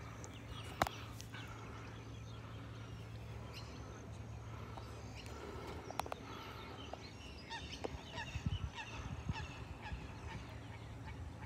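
Birds calling around a lake, many short chirps and calls scattered throughout over a low steady hum. There are sharp clicks about a second in and again about six seconds in, and low bumps of handling on the phone's microphone in the last few seconds.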